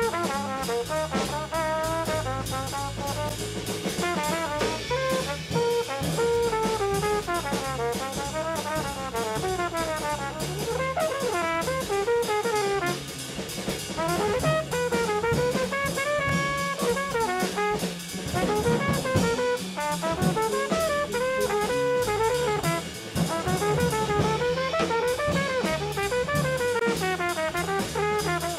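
Jazz quartet playing: a saxophone spins out a fast, winding solo line over drum kit, congas and bass.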